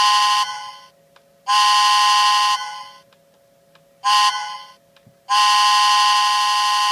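Whistle of a Lionel Thomas the Tank Engine toy train locomotive, blown in a long, long, short, long pattern: the end of one blast, a long blast, a short one, then another long one near the end. A faint steady hum runs between the blasts.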